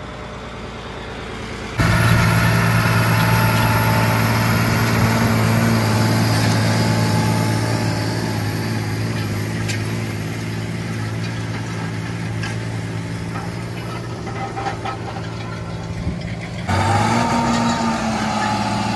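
John Deere 8300 tractor's six-cylinder diesel running steadily under load while pulling a tandem disc harrow, a constant drone with a faint high whine. It starts suddenly about two seconds in and changes to a closer, louder engine note shortly before the end.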